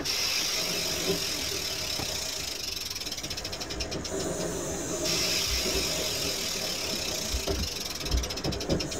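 Rapid mechanical ratcheting clicks over a steady hiss, in two spells: about two and a half seconds in and again near the end.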